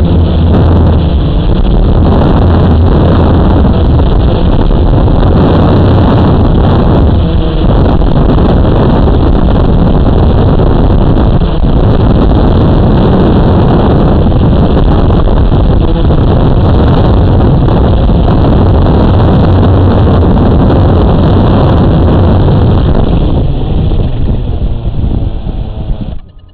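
A Blade 350 QX quadcopter's motors and propellers buzz steadily, heard close up from its own onboard camera, with some wind on the microphone. Near the end the noise fades and then drops off as the drone lands and the motors spin down.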